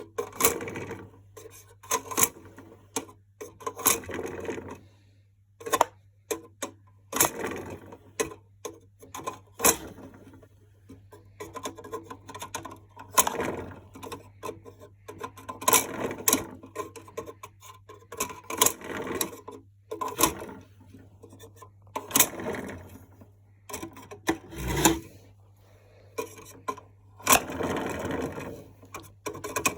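Plastic parts of a toy washing machine handled and turned by hand: irregular clicks, knocks and rattles as the wheel, axle and drum are worked.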